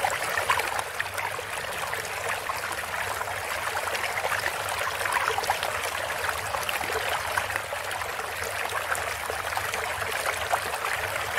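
Water sound effect: a steady rush of trickling, bubbling water with a low hum underneath.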